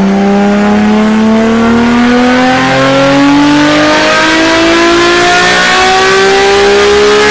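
Car engine accelerating hard, its pitch climbing steadily, with a short break in the climb about four seconds in, like a dyno pull on a rolling road.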